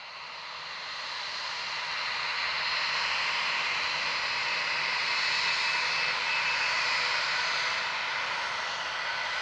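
Airbus A320-232's two IAE V2527-A5 turbofans at taxi power: a steady jet whine over a rushing noise, growing louder over the first couple of seconds and then holding steady.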